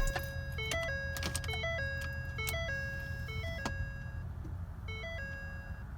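A simple electronic tune of single plain notes stepping up and down, over a steady low rumble.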